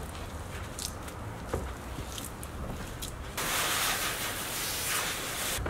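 Garden hose spraying water onto a car's bodywork: a loud, steady hiss that starts about three and a half seconds in and cuts off suddenly near the end. Before it, there are quiet wet rubbing sounds and small ticks from a soapy sponge being worked over the paint.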